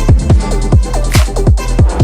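Electronic dance music with a fast, even kick-drum beat and short synth notes that glide down in pitch.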